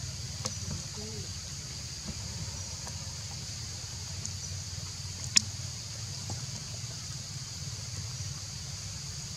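Forest ambience: a steady high insect drone over a low hum, with a sharp click about five seconds in.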